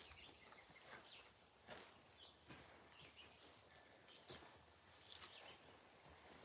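Near silence: faint outdoor ambience with a few soft, distant bird chirps.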